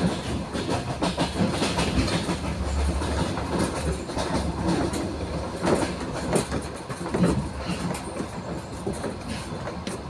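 Moving passenger train heard from inside the carriage: steady running noise and rattle, with irregular knocks of the wheels over the rails, a few louder ones past the middle.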